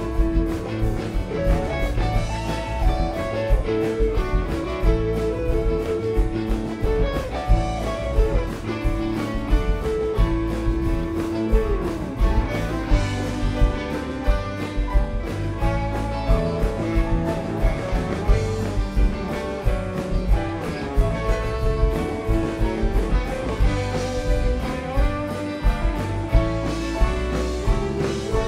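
Live rock band playing at full volume: electric guitars lead over a drum kit keeping a steady beat, with bass and organ underneath.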